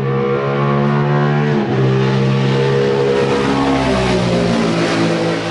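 Suzuki engine of a Segale Suzuki classic racing motorcycle running steadily at a fast idle, its pitch easing down near the end.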